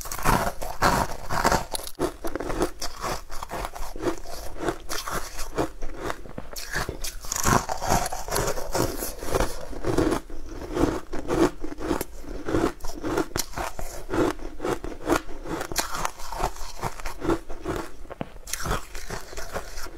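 A bite into a crunchy sugar-coated sweet pastry, then steady crunchy chewing at about two chews a second, full of small crackles.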